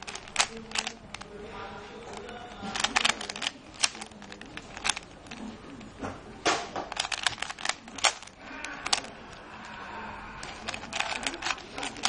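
Plastic Rubik's Cube clicking and clacking as its layers are twisted by hand, in quick runs of several turns with short pauses between them.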